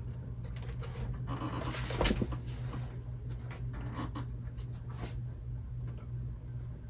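Scattered light clicks and knocks of a plastic laptop case being handled and readied for power-on, with a brief rustling scrape about a second and a half in, over a steady low hum.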